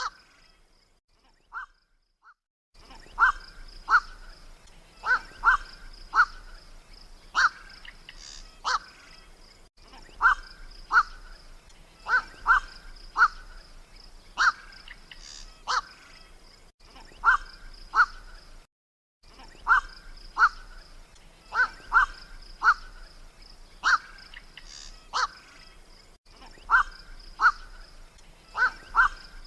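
Black-crowned night heron giving short, harsh 'kwok' calls from a hunting-lure recording, singly or in quick twos and threes about once a second. The calls start about three seconds in and drop out briefly about two-thirds through, over a faint steady high hiss.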